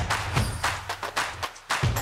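Background music with a quick percussive beat: sharp clicks and knocks over low drum thumps.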